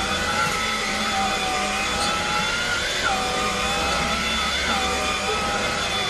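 Craftsman V20 cordless stick vacuum running on carpet with its brush roll on: a steady motor whine over a rushing airflow hiss, the whine rising and dipping slightly in pitch now and then.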